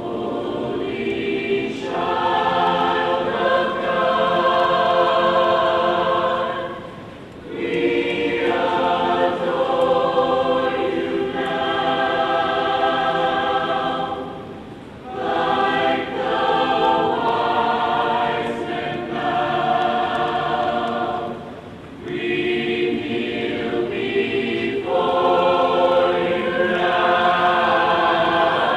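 A choir singing in long held phrases, each lasting six or seven seconds, with short breaks for breath between them.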